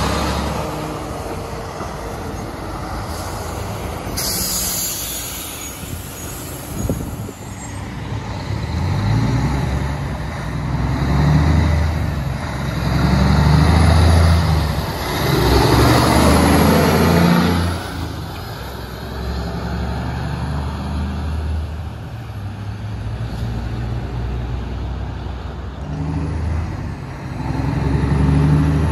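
Diesel semi-trucks hauling scrap trailers passing one after another. An air-brake hiss comes about four seconds in, and the diesel engine of a second truck is loudest around the middle as it pulls through; another truck comes closer near the end.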